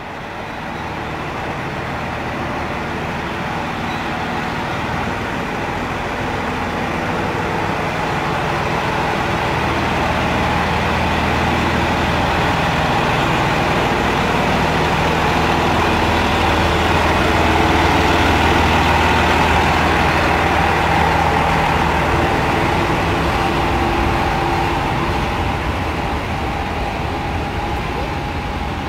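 SU42 diesel shunting locomotive's engine running steadily under load as it moves a rake of passenger coaches at low speed. It grows louder to a peak about two-thirds of the way through, then eases off.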